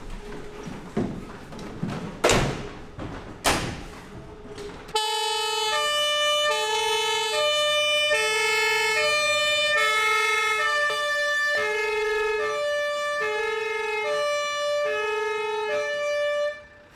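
A few thumps and knocks, then about five seconds in a fire engine's two-tone siren starts, alternating steadily between a low and a high note, each held a little under a second. The siren cuts off suddenly shortly before the end.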